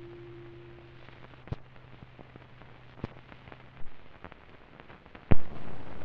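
Closing music dying away, then the hiss and crackle of an old optical film soundtrack with a few sharp pops. The loudest pop comes near the end and is followed by louder hiss as the film runs out.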